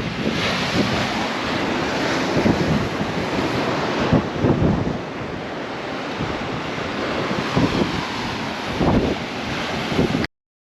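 Wind buffeting the microphone in uneven gusts over a steady rushing noise, all cutting off abruptly near the end.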